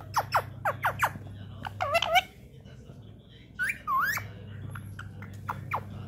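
Rose-ringed parakeet calling: a quick run of short, falling chirps, then a few longer squawks that dip and rise in pitch, with pauses between.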